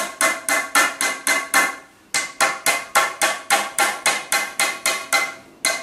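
Hammer tapping wooden dowels into the holes of a pine bed-frame board: a steady run of sharp strikes, about three to four a second, with a short pause about two seconds in before the tapping resumes.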